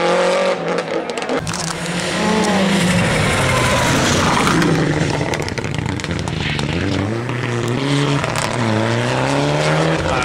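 Rally car engines revving hard as the cars accelerate past, the pitch climbing in steps through gear changes and dropping again several times, with tyre and road noise.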